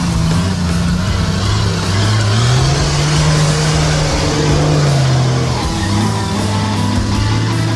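Off-road 4x4's engine revving hard under load, its pitch climbing about two and a half seconds in, holding, then dropping back about three seconds later.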